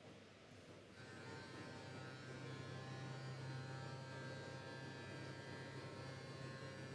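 Faint electrical hum and buzz from the public-address system, starting about a second in, the typical sign of a microphone going live; a steady low hum joins about a second later.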